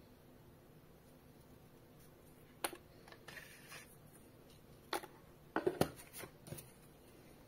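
Cardboard packaging and paper being handled on a wooden table: a few sharp taps and knocks of the box and its tray, with brief paper rustling between them. They start about two and a half seconds in, with a quick cluster of knocks about two thirds of the way through.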